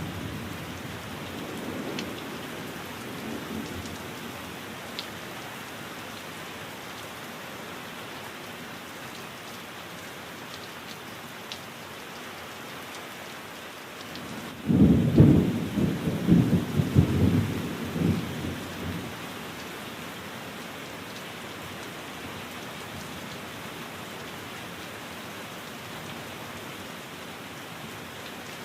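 Steady rain, with a loud roll of thunder about halfway through that rumbles for four or five seconds and dies away.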